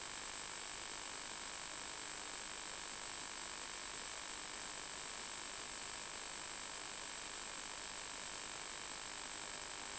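Steady static hiss with a constant thin high-pitched whine on top, unchanging throughout: the empty audio channel of an analog 1.2 GHz FPV video receiver, carrying no sound from the plane.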